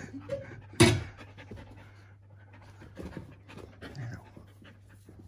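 Dog panting at close range, with scattered rustling and one sharp knock about a second in.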